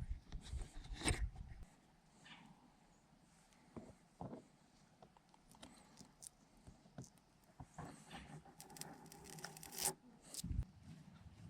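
Faint clicks, scraping and rubbing of hand work on drum-brake parts and hardware, with a denser run of scraping about eight to ten seconds in.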